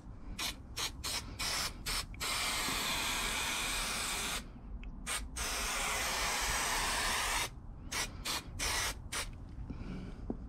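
Aerosol spray adhesive hissing from the can onto the edge of a plywood panel for gluing carpet. It goes in a run of short squirts, then a long spray of about two seconds, two short squirts, another long spray of about two seconds, and more short squirts near the end.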